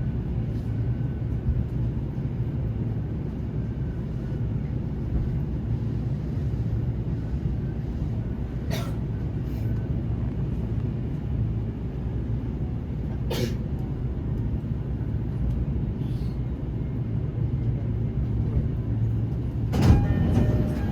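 Commuter electric train heard from inside the car, rolling slowly into the platform after restarting from an emergency stop. A steady low rumble runs throughout, with sharp clicks about 9 and 13 seconds in and a louder burst of brake noise near the end as it draws up to its stopping position.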